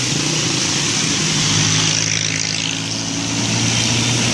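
Large bus engine running close by, a steady low drone that grows stronger about a second in, over a broad hiss of road noise.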